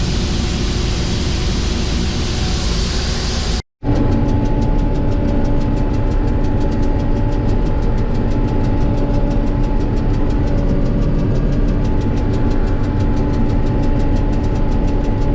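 John Deere 8820 combine running steadily while harvesting soybeans, heard from inside the cab. The sound drops out briefly about four seconds in, then goes on as a steady hum with a fast, even ticking.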